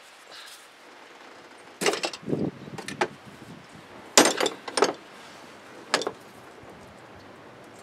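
Metal hand tools clanking and rattling as they are handled and set down on the truck's fender: a few short clanks about two seconds in, a louder cluster around four seconds in, and a single clank near six seconds.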